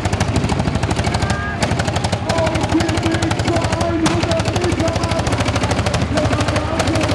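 Large old diesel engine running steadily, its exhaust giving a rapid, even train of firing beats.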